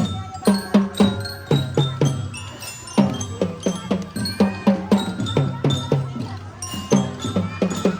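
A children's marching drum band playing: drums beating a steady rhythm of sharp strokes, with a melody on ringing metal mallet bells.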